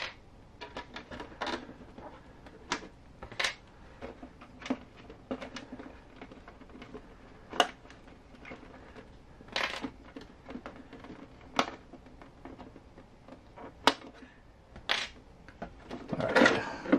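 Scattered clicks and taps of hands handling a hard plastic RC truck body and pulling its small metal body clips, with a denser clatter near the end as the body is gripped and lifted off the chassis.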